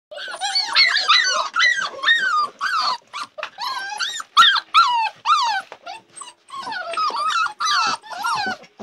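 A litter of Labrador puppies whining and yelping together, many high calls overlapping, with brief pauses about three and six seconds in.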